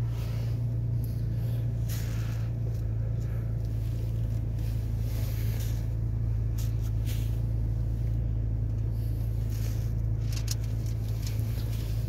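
Steady low hum of a Chevrolet Traverse SUV's engine heard from inside the cabin while it is backed slowly out in reverse, with a few light clicks.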